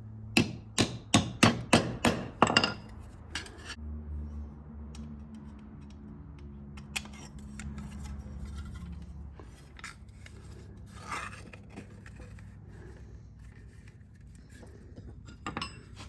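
A quick run of about seven sharp metal-on-metal strikes on a rivet-setting tool over a steel rivet in sheet steel, then quieter clinks and scrapes of metal being handled.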